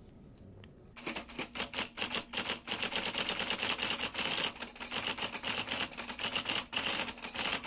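Typewriter sound effect: a fast, dense run of clattering keystrokes that starts about a second in and goes on without a break.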